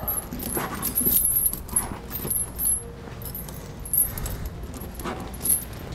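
Steel V-bar tire chain links clinking and jingling in short, irregular bursts as the chain is handled and fastened on the tire.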